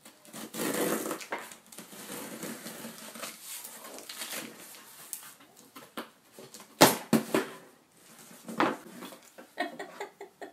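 Packing tape on a cardboard shipping box being scraped and torn open with a pen. The cardboard rustles, with several sharp knocks and clicks from the box being handled.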